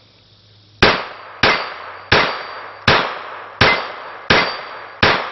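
Ruger SR22 .22 Long Rifle semi-automatic pistol fired seven times in steady succession, about 0.7 s apart, starting a little under a second in. Each shot comes with the clang of a close steel plate target being hit, leaving a short high ring.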